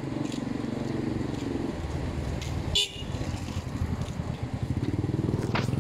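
Street traffic: a motor vehicle engine running close by, with a short vehicle horn toot about three seconds in.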